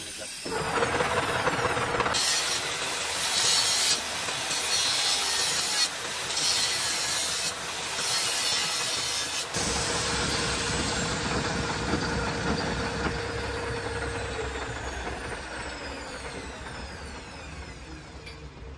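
Metal lathe spinning a welded steel tube in a four-jaw chuck, with the cutting tool scraping and hissing across the welded end in uneven spells. About halfway through the sound changes to a lower rumble and a whine that falls in pitch and fades as the spindle winds down to a stop.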